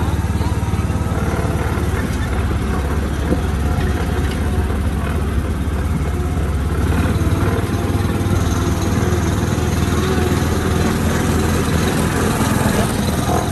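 A motor running steadily with a constant low rumble.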